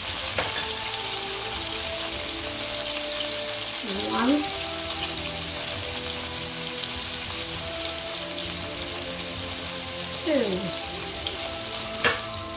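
Hot oil sizzling steadily in a wok with chilli, garlic, ginger, dark soy sauce and tomato puree.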